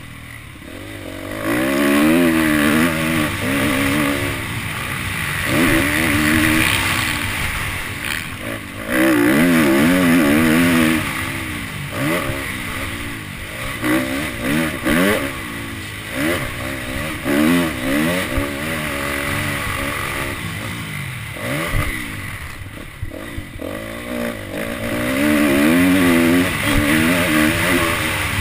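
Dirt bike engine revving hard and easing off over and over as it is ridden round a motocross track, its pitch climbing and dropping every few seconds through throttle changes and gear shifts, heard from the rider's helmet.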